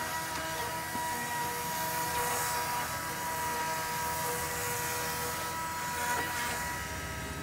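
A motor running at a steady high speed with a constant whine, which stops about six seconds in.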